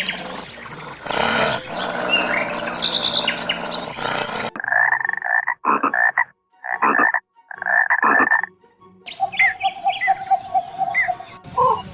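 A string of different animal calls: first a noisy stretch full of short chirps, then four separate pitched calls, then more chirps over a steady pulsing trill.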